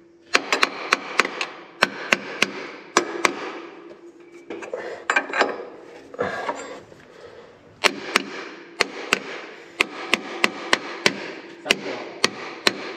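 Hammer lightly tapping on a steel seal-installer tool to ease a new crankshaft seal onto the crank: sharp metallic taps in quick groups of two to four, with pauses between the groups.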